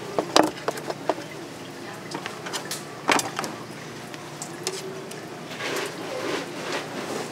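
Sharp knocks of a knife and fish on a cutting board: a quick run of knocks near the start and a single loud knock about three seconds in.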